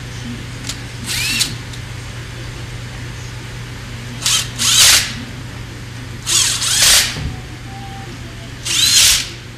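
Bosch cordless drill driving screws into a plastic tool housing in about five short bursts, each run of the motor rising in pitch as it spins up.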